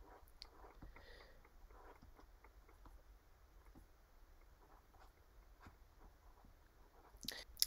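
Near silence: faint room hum with light scattered taps of a stylus writing on a tablet, and a brief louder click near the end.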